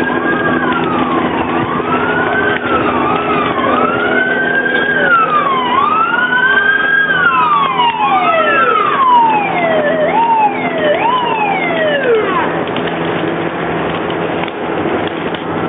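Fire engine sirens wailing over one another, each rising and falling, over the steady run of a truck engine. The last wail falls away and stops about twelve seconds in, leaving the engine running.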